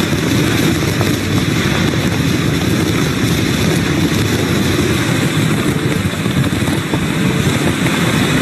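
Hurricane-force wind blowing loud and steady, a dense low rumble with a hiss above it.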